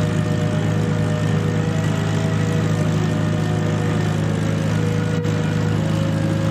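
Supermarine Spitfire's V12 piston engine running steadily with its propeller turning.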